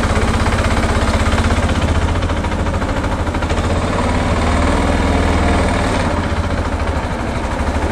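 Small wooden boat's engine running steadily at a loud, even pace with a rapid knocking beat, heard from aboard.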